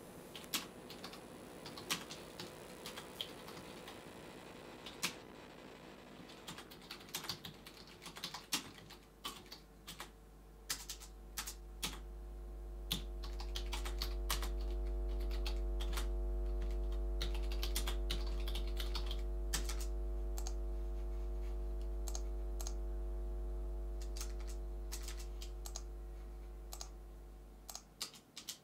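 Irregular light clicks. A deep hum with several steady tones above it swells in about ten seconds in and stops abruptly near the end.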